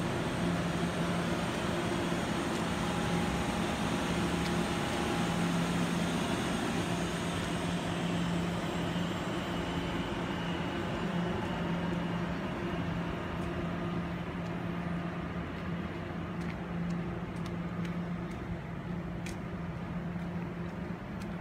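Puyuma Express tilting electric train running with a steady electrical hum over rumbling noise; the higher hiss dies away about eight seconds in and the sound eases slightly after that. A few faint clicks come near the end.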